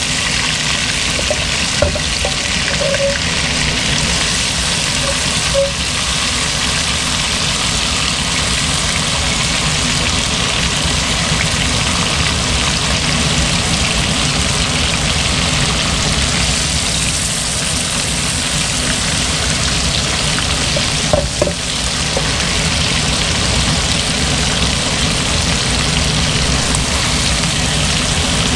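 Chicken wings sizzling steadily as they fry in oil in a stainless steel wok, with a few light knocks as the pieces are turned in the pan.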